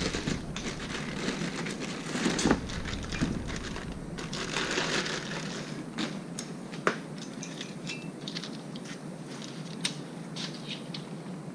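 Hand handling of a new wheel hub assembly and its plastic packaging: crinkling and rustling with scattered sharp clicks and light knocks.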